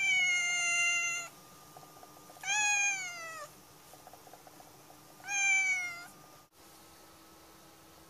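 Grey-and-white domestic cat giving three begging meows, each sliding down in pitch, the first the longest.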